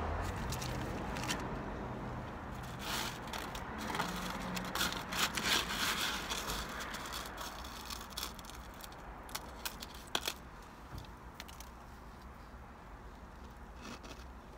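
Paper and cardboard food packaging rustling and crinkling as fast food is handled, busiest a few seconds in and thinning out later, over a steady low hum.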